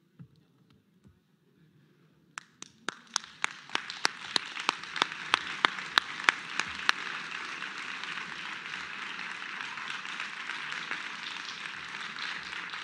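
Audience applauding, starting about two seconds in. For the first few seconds one pair of hands close by claps loudly and evenly, about four claps a second, over the crowd; after that the applause carries on evenly.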